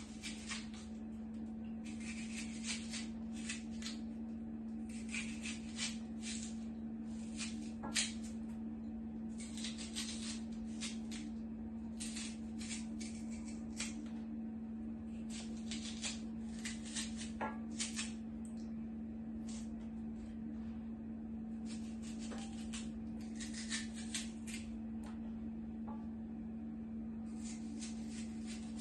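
Kitchen knife cutting pieces from an onion held in the hand over a pot: many irregular short, crisp cuts. A steady low hum runs underneath.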